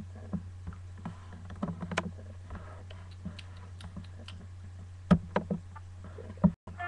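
Steady low electrical hum with scattered light clicks and taps, and two louder knocks, about five and six and a half seconds in.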